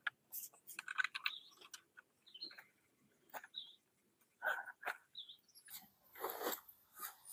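Backpack being packed and zipped shut by hand: scattered rustling of the bag's fabric, small knocks and clicks, and short zipper rasps, the longest about six seconds in.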